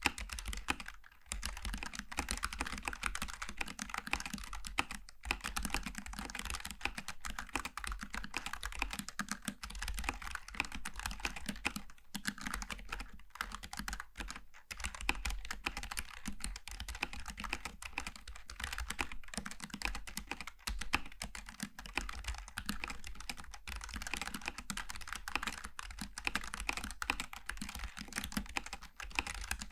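Steady, fast typing on a Logitech G915 TKL low-profile mechanical keyboard with GL Tactile switches: a dense run of key clicks and clacks with a few brief pauses.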